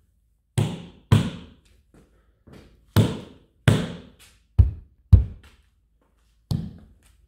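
A hand pounding on a Tesla Model 3's window glass and roof: about seven loud, sharp thumps at irregular intervals, with a few fainter taps between.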